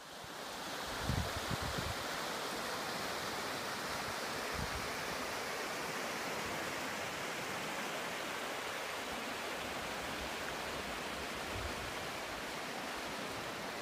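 Rushing floodwater of a swollen river, a steady, even noise, with a few low bumps on the microphone about a second in.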